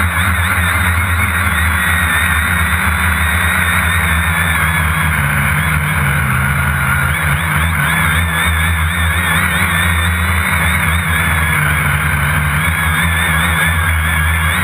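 Quadcopter's electric motors and propellers buzzing steadily, picked up by a camera mounted on the drone itself, with a whine that wavers up and down in pitch.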